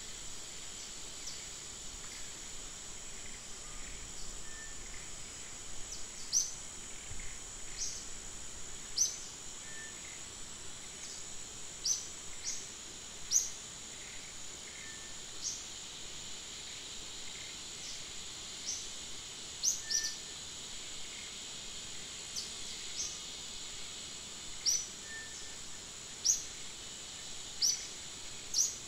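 Forest ambience: a steady high insect drone, with a bird giving short, sharp, rising high-pitched chirps every few seconds and a faint lower note now and then.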